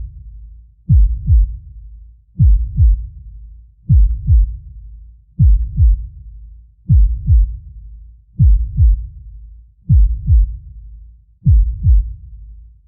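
Deep heartbeat sound effect: slow, steady lub-dub double thumps, one pair about every one and a half seconds (roughly 40 beats a minute), deep and low-pitched.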